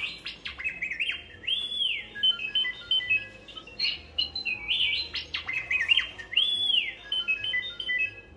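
R2-D2 toaster playing R2-D2's electronic beeps and warbling whistles, the sequence heard twice, each time about four seconds long. The toaster plays this when the lever is pushed down to start toasting.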